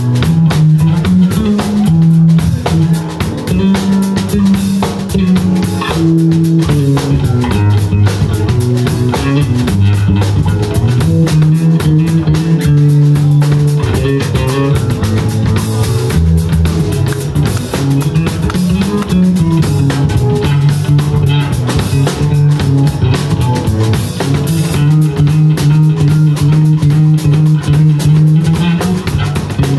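Live rock band playing: electric guitar, keyboard and drum kit over a moving bass line, loud and steady throughout.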